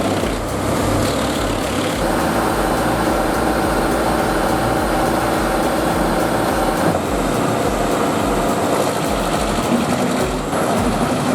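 A heavy shredding machine, a wood chipper or industrial shredder, running loud with a steady engine drone under a coarse grinding noise; the sound shifts in character about two seconds in and again near seven seconds.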